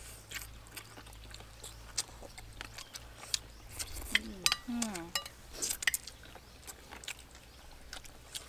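People eating chicken wings with rice close to the microphone: many short mouth smacks, chewing and spoon clicks, with a brief sound of a voice about four seconds in.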